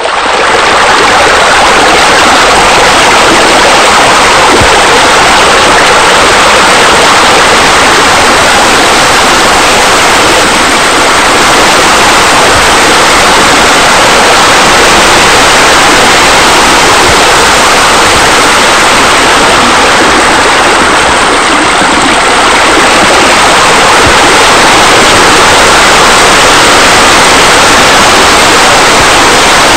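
Loud, steady rush of falling water, like a waterfall spilling into a pool.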